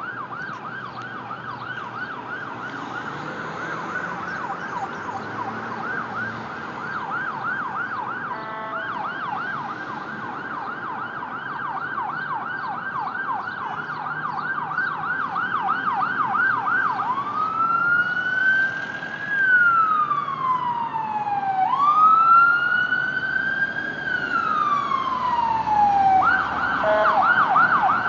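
Ambulance siren on a fast yelp, about three sweeps a second, switching about two-thirds of the way in to two slow rising-and-falling wails, then back to the yelp near the end. A short horn blast cuts in about a third of the way in and again just before the yelp resumes, and the siren grows louder throughout as the ambulance approaches.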